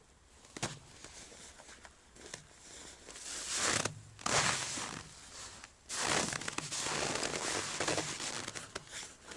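Rustling, scraping and tearing handling noises in three long bursts, starting a few seconds in, with scattered small clicks.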